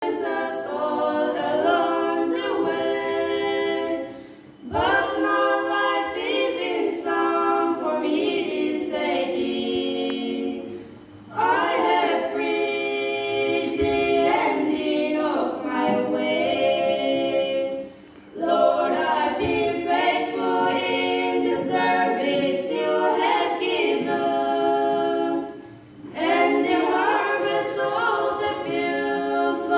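A trio of girls singing a cappella into handheld microphones, several voices together, with brief pauses between phrases roughly every seven seconds.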